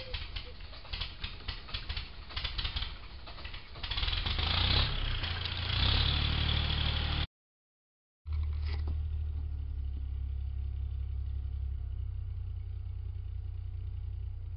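Nest box camera microphone picking up scattered taps and knocks, then a louder rough rumbling noise for about three seconds. After a short break, a steady low electrical hum with faint hiss sounds inside the little owl nest box.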